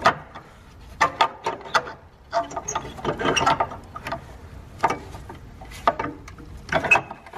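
Irregular clicks and short rattles of plastic and metal parts being handled while a car's engine control unit is refitted in its bracket, busiest about halfway through.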